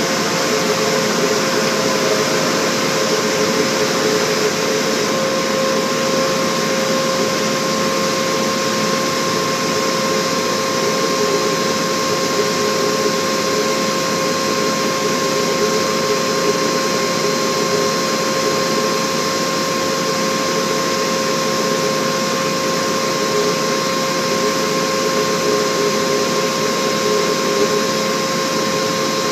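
Cleaver Brooks FLEX boiler burner running through pilot ignition to main flame. Its combustion air fan makes a steady, unbroken whir with a whine over it.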